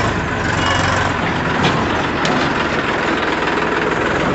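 Backhoe loader's diesel engine running steadily, with a couple of short clicks about halfway through.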